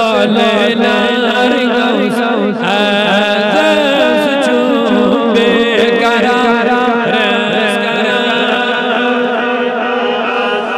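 A man chanting an Urdu manqabat, a devotional poem in praise of Ghaus-ul-Azam, in a melodic recitation with long, bending, held notes. The voice is sung into a microphone and amplified.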